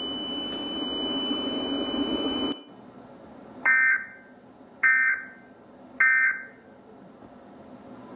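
Emergency Alert System end-of-message signal: three short, harsh digital data bursts about a second apart, which mark the end of the alert broadcast. Before them, a steady static hiss cuts off abruptly about two and a half seconds in.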